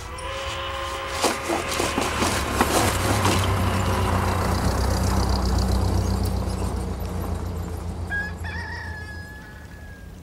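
A rooster crows near the start over the steady low running of a vintage car's engine as it drives along a dirt lane, with clicks and rattles in the first few seconds. A thin, high held call comes near the end as the engine sound fades.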